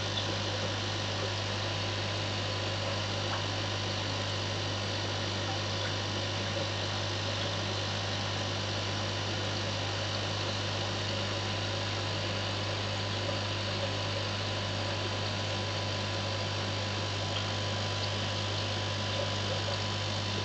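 Aquarium pump humming steadily, with a constant hiss of bubbling water.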